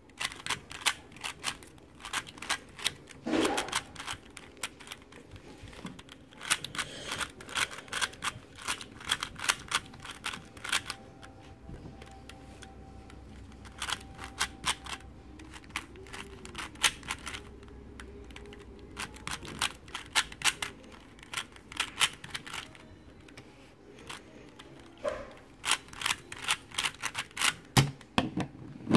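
3x3 speedcube's plastic layers being turned fast by hand during a solve: rapid clicking and clacking in bursts, with short pauses, and a louder knock near the end.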